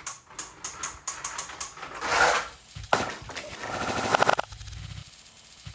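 Rapid plastic clicking from a toy monster-truck drop-track playset as a die-cast monster truck is sent down it, then a sudden louder clatter about three seconds in.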